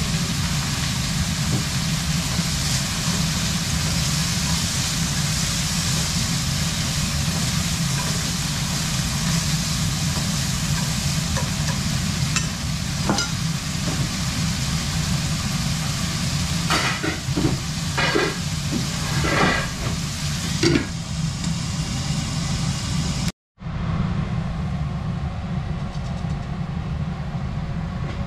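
Meat and onion sizzling steadily in a frying pan, over a steady low hum. A few light clicks sound around the middle. After a brief break near the end, the sizzle is softer.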